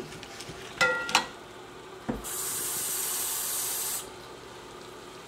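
Metal serving spoon clinking twice against a metal cooking pot, with a short ring, about a second in. Then a dull knock and a steady high hiss for nearly two seconds that cuts off suddenly.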